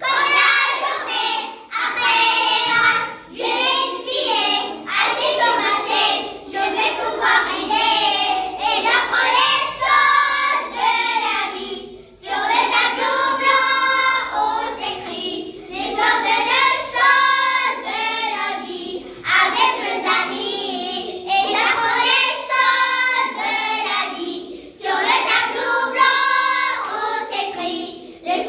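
A group of primary-school children, about nine or ten years old, singing a song together in unison, phrase after phrase with short pauses for breath.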